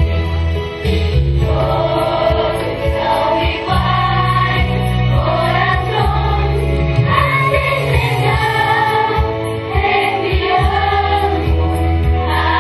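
Children's choir singing together, the voices coming in about a second in, over a steady low instrumental accompaniment.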